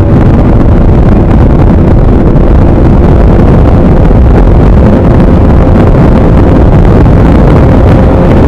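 Bajaj Pulsar 200NS single-cylinder engine running at a steady cruising speed, its faint even note buried under loud, constant wind buffeting on the microphone.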